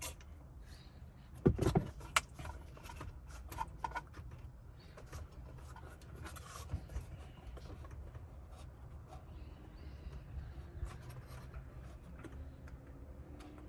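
Scattered small clicks and rattles of plastic wiring-harness connectors being unplugged from the back of a pickup truck's radio unit, with a louder knock about one and a half seconds in.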